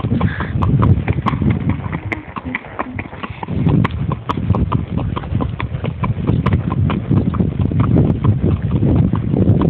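Horse's hooves on a gravel track in a steady clip-clop, about three strikes a second, over a loud low rumble.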